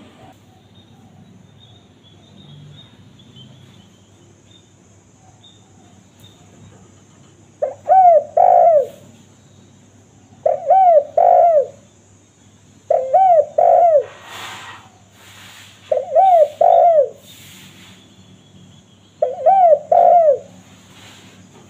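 Spotted dove (tekukur) cooing: after a quiet start, five phrases of two or three rounded coo notes each, repeating about every three seconds. A few short hissing rustles sound between the phrases in the middle.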